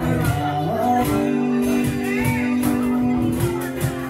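Live band playing a guitar-led song, with a singer and a beat.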